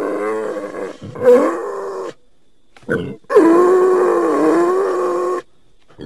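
Wild boar calling: a run of short calls that rise and fall in pitch over the first two seconds, then after a pause one long call of about two seconds at a steady low pitch that cuts off suddenly.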